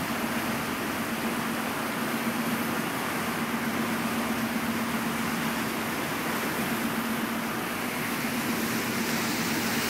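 A ferry's engine running with a steady low hum under the rush of the churning wake and wind on the microphone.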